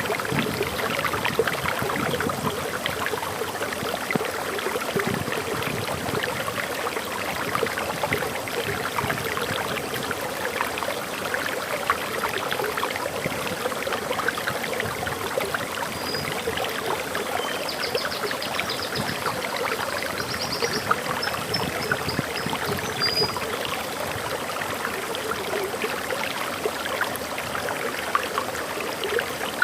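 Water pouring over a small forest waterfall, a steady rush with constant splashing and gurgling. A bird chirps and trills a few times in short high phrases about halfway through.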